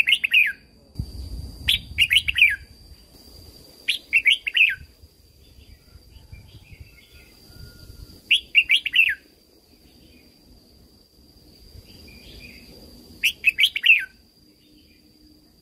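Red-whiskered bulbul singing: five short, quick phrases of several falling whistled notes, spaced a few seconds apart, with a few fainter calls between them, over a faint steady high whine.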